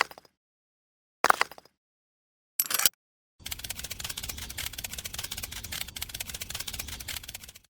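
Two sharp knocks, then, about three and a half seconds in, a small motor starts running with a rapid, even clicking and a low hum for about four seconds.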